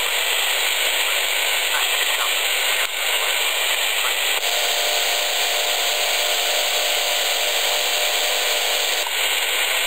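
Yaesu FT-817 receiver's speaker hissing with loud, steady static on the 28 MHz AM channel. A faint steady tone joins about halfway through and stops shortly before the end.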